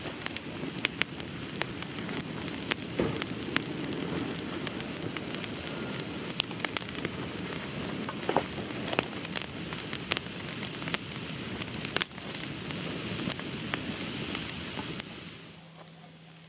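Open wood fire of twigs and branches burning, with frequent sharp crackles and pops over a steady rushing noise; it drops away abruptly near the end.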